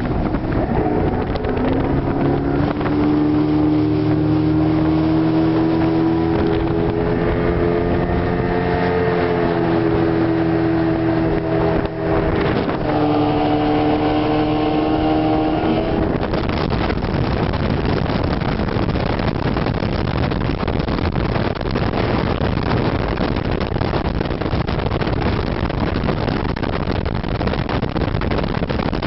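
Big outboard motor on a bass boat running at speed, its pitch climbing slowly over the first several seconds and dipping briefly near the middle. After about sixteen seconds the engine tone gives way to a steady rush of wind and water on the microphone.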